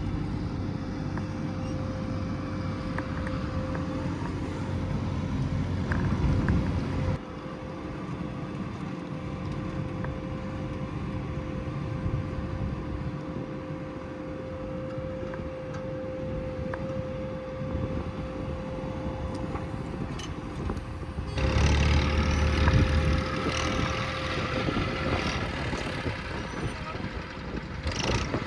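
Diesel engines of earthmoving machines running steadily, with a low rumble. The sound changes abruptly about 7 and 21 seconds in, and is loudest just after the second change.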